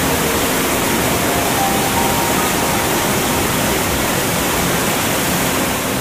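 Waterfall rushing, a loud, even roar of falling water, with soft background music faintly beneath it.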